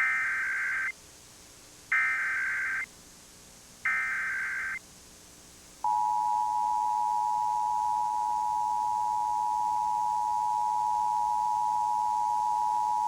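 Emergency Alert System required monthly test: three short bursts of SAME header data tones about two seconds apart, then, about six seconds in, the steady two-tone attention signal (853 and 960 Hz sounded together).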